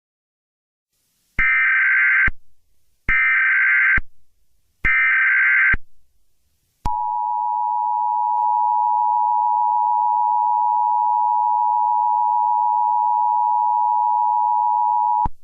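Emergency Alert System broadcast header: three one-second bursts of SAME digital data tones, then the two-tone EAS attention signal held steady for about eight seconds before cutting off abruptly.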